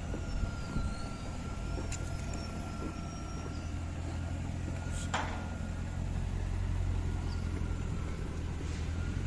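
Steady low rumble of a motor vehicle running, with two sharp clicks, one about two seconds in and one about five seconds in.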